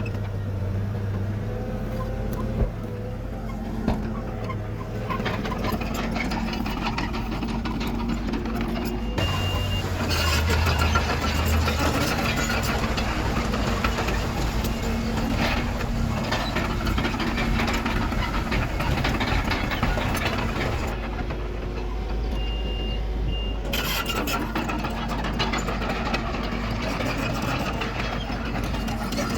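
Heavy diesel earthmoving machinery, a bulldozer and dump truck, running with a steady engine drone that gets louder and busier about nine seconds in. Short reversing beeps sound about nine seconds in and again about twenty-two seconds in.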